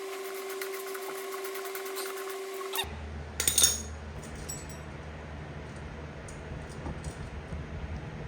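A power tool whines steadily with fast ticking while tightening a fastener, then stops about three seconds in; a short, sharp metallic clatter follows, then a low steady hum.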